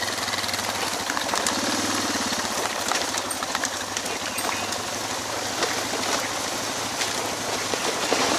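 Suzuki DR650 single-cylinder engine running steadily under the rider, an even stream of close-spaced firing pulses, swelling briefly in pitch about two seconds in.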